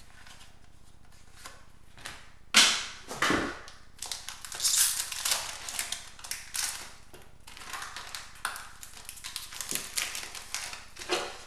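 Trading-card pack wrapper crinkling and rustling as hockey cards are pulled out and handled. Two loud crackles come about two and a half to three seconds in, then a long run of irregular rustling.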